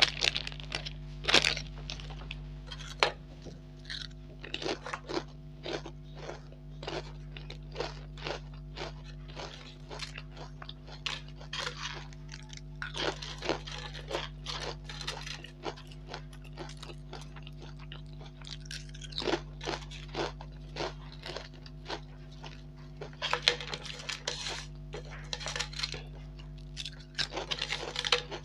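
Lay's potato chips being crushed and broken by fingers on a plate: many sharp cracks and crackles, with denser bursts of crunching around halfway and near the end. The foil chip packet crinkles at the start, over a steady low hum.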